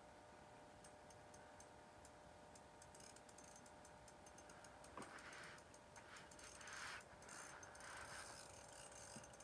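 Very quiet ticking and clicking of a spinning reel as a fish is reeled in on a light drag, over a faint steady hum. Soft rustling joins in about halfway through.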